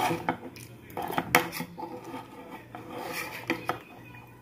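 Metal fork scraping and clinking irregularly against a shallow metal plate, a few sharp clinks about a second in and again near the end, as a child scrapes up the last food on a nearly empty plate.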